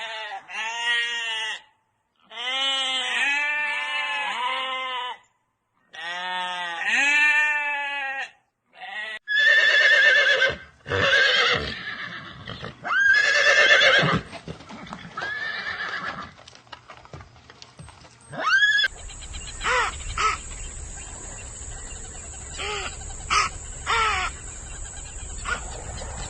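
A string of animal calls, one clip after another. First come three runs of quick calls, each rising and falling in pitch. From about ten seconds in there are several louder, longer calls, and near the end a rising call followed by clicks and a steady high whine.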